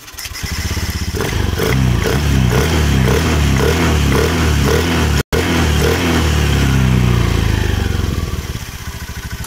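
Honda Vario 110 scooter's single-cylinder four-stroke engine starting and running above idle, the rear wheel spinning freely on the stand, then slowing with falling pitch near the end. There is a momentary dropout just after halfway.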